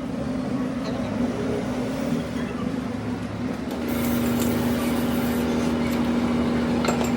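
A motor or engine running steadily with a constant hum, which firms into a louder, steady tone about four seconds in, joined briefly by a hiss.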